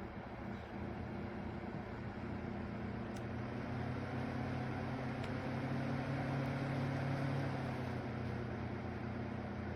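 A motor running with a steady hum, growing louder over the first few seconds and then holding steady.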